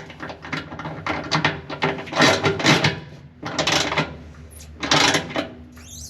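Hand tools working on metal parts while brake components are fitted into a race car: a run of short scraping and clattering strokes in irregular clusters, pausing briefly twice.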